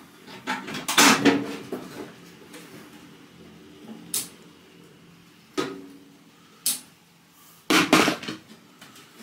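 Metal parts being handled and knocked together: a cluster of clanks about a second in, single knocks a few seconds later, and another cluster near the end, each with a short ring.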